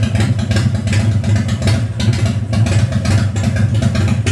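Freshly built V-twin motorcycle engine in a custom chopper, idling steadily with a fast, even pulsing beat.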